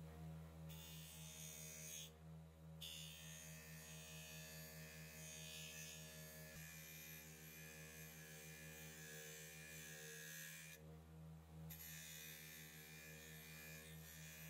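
Electric bench grinder motor running steadily with a low hum, a buffing wheel spinning on its shaft. A faint hiss over it comes from a chrome motorcycle headlight rim being polished against the wheel, and it drops out briefly twice.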